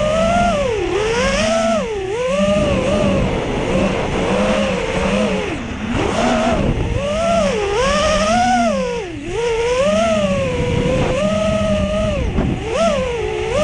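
Brushless motors (BR2205 2300KV) of an FPV racing quadcopter whining, the pitch swooping up and down about once a second as the throttle changes, with rough wind noise underneath.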